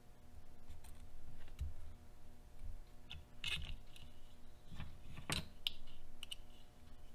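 Small plastic RC car parts being handled and fitted together: low handling rustle, then a scatter of short, sharp plastic clicks and taps in the second half.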